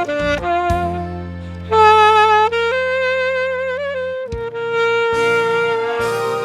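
Saxophone playing a slow song melody over a backing track with a low bass line and drum strokes; a few shorter notes, one bent near the end, lead into a long held note that starts about four seconds in.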